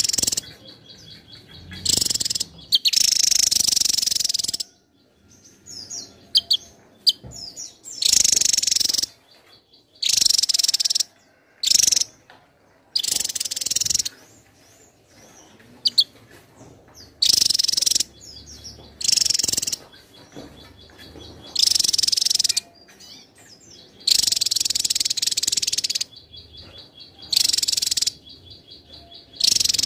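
Javan tesia singing continuously: loud, high-pitched bursts of rapid jumbled song, each about a second long, repeated every couple of seconds.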